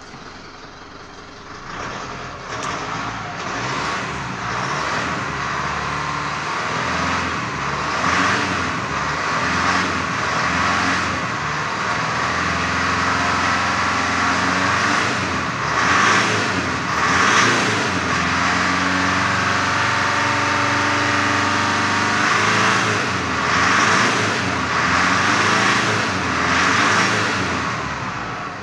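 2015 Mitsubishi Triton MN's 2.5-litre four-cylinder turbo-diesel engine running with the vehicle standing still. It is brought up from idle about a second and a half in and held at around 2,000–2,500 rpm, rising and falling in loudness several times.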